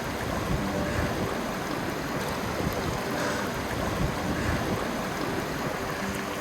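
Steady rushing of a snowmelt stream.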